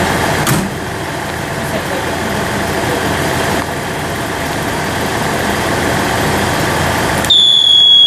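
Diesel railcar's engine idling at a steady drone; about seven seconds in, a loud, steady high-pitched departure buzzer starts sounding in the train, the signal for the train's departure.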